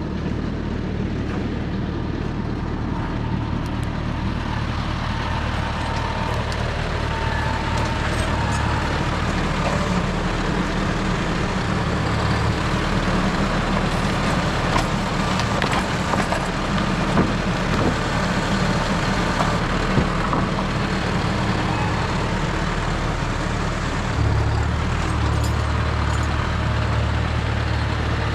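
John Deere 5075E tractor's diesel engine running steadily, with a few sharp knocks midway and the engine note changing to a stronger, lower sound near the end.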